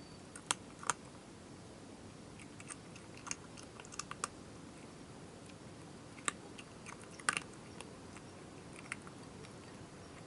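A cat crunching dry food: irregular sharp crunches and clicks, some in quick pairs, with pauses of a second or more between them.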